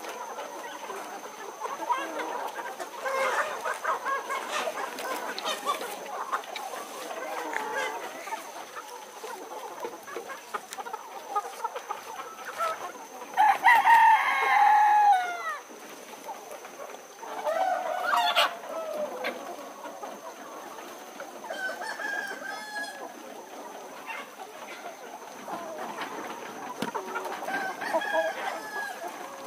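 Hill chickens clucking, with a rooster crowing loudly once about halfway through and a shorter call a few seconds later.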